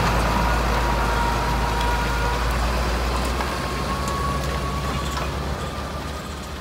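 John Deere tractor's diesel engine running steadily as it pulls a loaded trailer, with a high whine over the engine note, slowly fading as it moves away.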